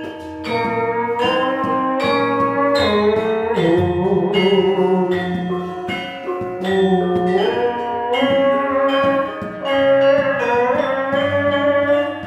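Javanese gamelan music accompanying a wayang kulit performance: struck percussion keeps a steady beat under a melodic line that slides smoothly between notes.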